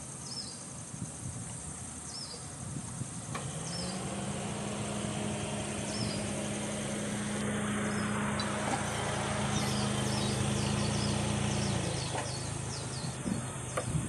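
Outdoor ambience of a steady high insect drone with short high chirps repeating every second or two. About three seconds in, a low engine hum comes in rising in pitch, holds steady and louder, then drops away a couple of seconds before the end, like a motor vehicle passing.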